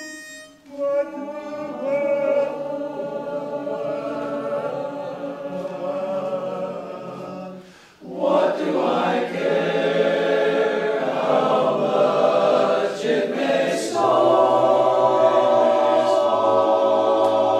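Choir singing a cappella in several parts, starting just under a second in after the starting pitch has been given. The chords are held and sustained. There is a brief break about eight seconds in, and the singing comes back louder.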